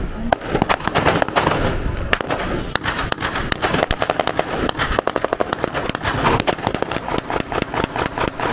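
Blank gunfire from a WWII battle reenactment: scattered rifle shots throughout, with a rapid machine-gun burst about halfway through.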